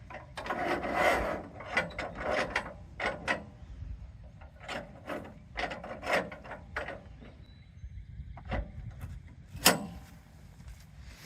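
A white pine log being slid back along the steel bed of a Woodland Mills portable sawmill: irregular wood-on-metal scraping and knocking, with one sharp knock near the end.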